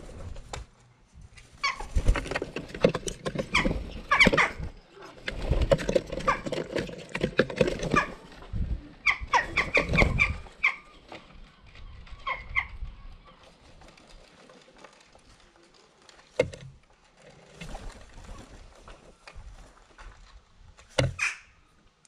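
Jackdaws at a wooden feeder table, close to the microphone: bursts of wing flapping and scrabbling on the wood, with short harsh calls. The busiest stretch is the first ten seconds, after which there are only scattered knocks and calls.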